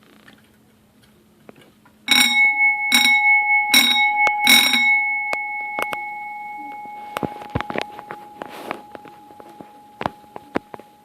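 Electric Wheelock fire alarm bell rung in four short bursts about a second apart, its gong then ringing on and slowly fading. A few short knocks near the end.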